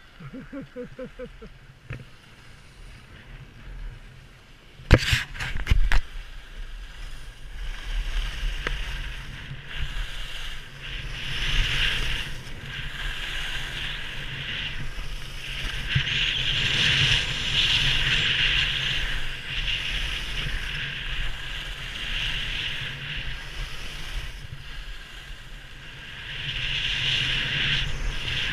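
Skis carving on firm groomed snow, a scraping hiss that swells and fades with each turn, with wind rushing over the microphone. A cluster of sharp knocks comes about five seconds in.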